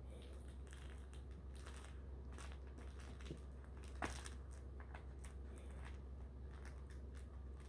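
Faint, scattered scratching and clicking from kittens scuffling as they play, with a sharper click about four seconds in, over a steady low hum.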